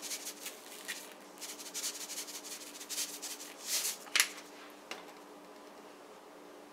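Salt being dispensed over raw seasoned chicken wings: a run of short gritty rasps over the first few seconds. A sharp click follows about four seconds in, and a fainter one a moment later.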